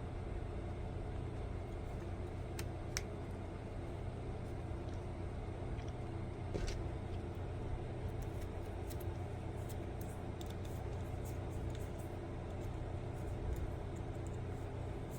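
Scattered light clicks and taps of 3D printed plastic propeller blades and hub parts being handled and fitted together: a few at first, more frequent in the second half, over a steady low hum.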